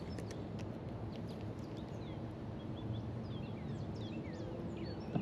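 Songbirds calling, many short quick chirps and whistled notes overlapping, over a steady low background rumble.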